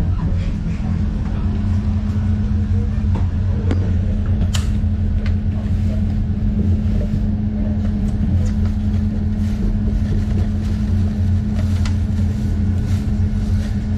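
ÖBB Nightjet passenger coach in motion, heard from inside the corridor: a steady low rumble and hum of the running train, with a few light clicks and rattles.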